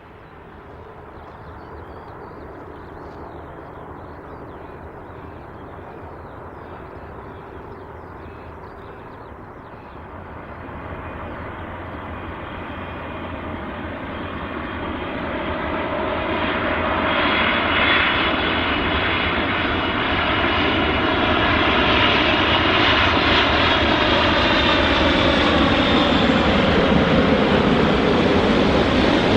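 Boeing 747-400F freighter on landing approach, its four jet engines growing steadily louder as it comes near. Whining engine tones slide down in pitch as it passes, and it is loudest through the last third.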